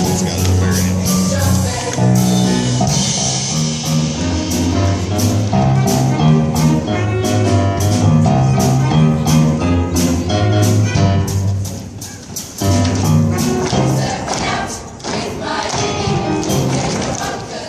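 Music with a moving bass line, a tambourine shaken in steady rhythm and singing, easing off briefly about twelve seconds in before picking up again.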